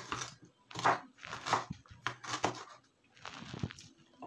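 Cleaver chopping ginger on a wooden cutting board: five separate chops spaced about half a second to a second apart, then a longer, softer scrape a little over three seconds in.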